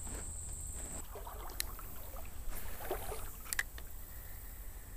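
Shallow creek water sloshing and trickling around someone wading, over a low steady rumble, with a few light clicks. A high thin steady tone stops about a second in.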